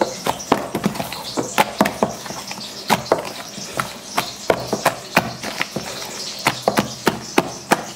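A hand beating thick ground urad dal batter for medu vada in a bowl, making irregular wet slaps and squelches a few times a second. The batter is being whipped to work air in so that it turns light and fluffy.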